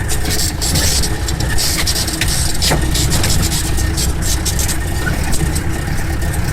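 Jeep engine running through a drive on a rough hill track, with frequent rattles and knocks from the vehicle.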